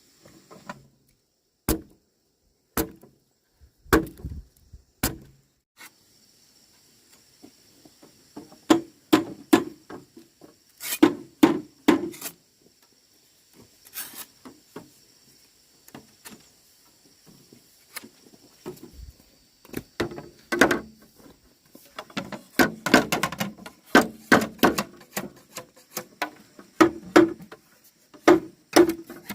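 Irregular knocks and thuds of wood being struck and handled, some single and some in quick clusters, busiest from about 20 s on.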